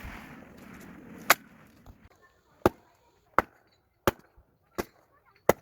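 Fiskars X11 splitting axe chopping firewood: six sharp chops at a quick, even pace, about 0.7 s apart, starting about a second in.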